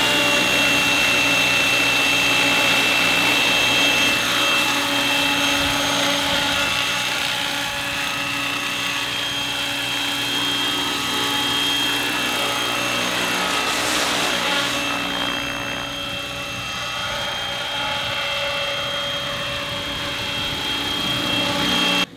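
Radio-controlled scale Robinson R22 model helicopter running at flight rotor speed: a steady high whine over the drone of the motor and rotor, lifting off into a low hover. The sound cuts off suddenly near the end.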